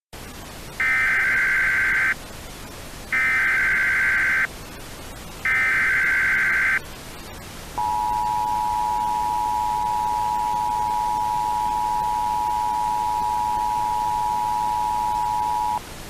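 Emergency Alert System signal: three short bursts of SAME header data tones, about a second apart, then the two-tone EAS attention signal held steady for about eight seconds, all over a constant hiss.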